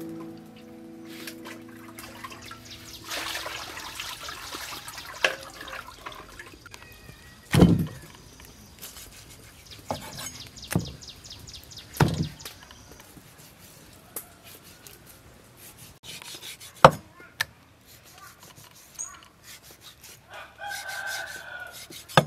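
Cleaver knocking on a wooden chopping block as raw pork is cut up: a handful of sharp, irregularly spaced chops with quieter handling sounds between them. A rooster crows briefly in the background near the end.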